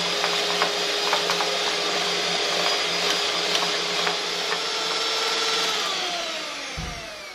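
Electric hand mixer running steadily, its twin wire beaters whisking eggs, sugar and oil in a glass bowl, with frequent light ticks. Near the end the motor is switched off and winds down, its pitch falling away.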